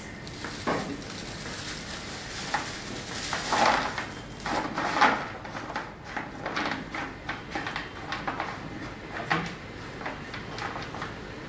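Irregular knocks, taps and clatter of objects being handled on a kitchen counter, with a louder cluster a few seconds in.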